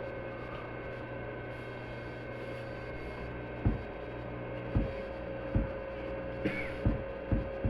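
Steady electrical hum from a car sound system. About halfway through, short low thumps start, roughly one a second.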